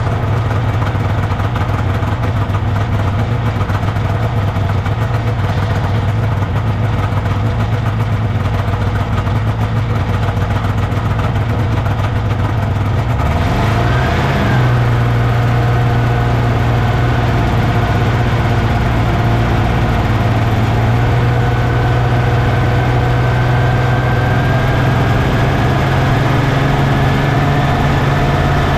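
A 1979 Scorpion Whip snowmobile's Cuyuna 440 two-stroke engine idling steadily. About halfway through it revs up and settles at a steady higher speed, its pitch creeping slowly upward as the sled gets under way.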